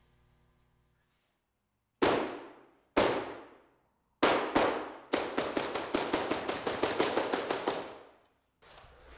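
Sharp percussive hits, each with a long echoing decay. There are two single hits a second apart, then a quick pair, then a fast run of about five hits a second for some three seconds that fades out.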